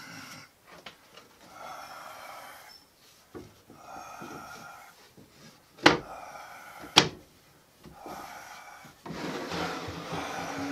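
Two sharp knocks about a second apart near the middle, as a shelf panel is set into a wooden shelf frame. Around them come softer repeated rubbing and breathing sounds.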